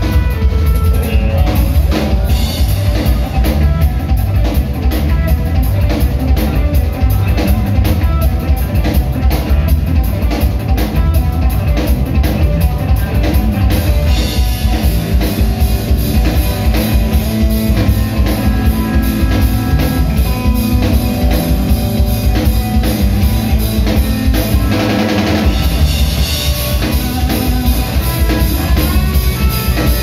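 Live rock band playing an instrumental passage: a drum kit driving hard, with electric guitar and bass guitar. The low end drops out for a moment about twenty-five seconds in.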